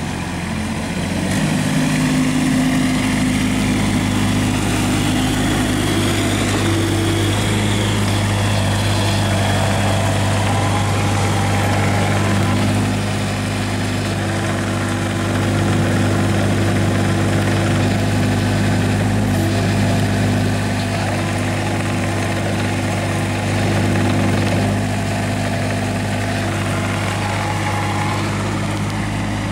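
Kubota U20 mini excavator's diesel engine running steadily, its loudness stepping up and down every few seconds as the machine is worked.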